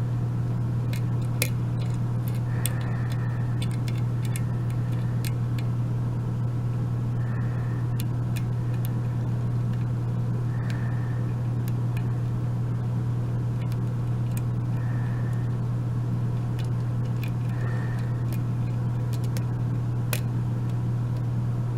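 Lock pick and tension wrench working the pins of a Sargent mortise cylinder during single-pin picking: scattered faint, irregular metallic clicks and scrapes. A steady low hum runs underneath and is the loudest sound.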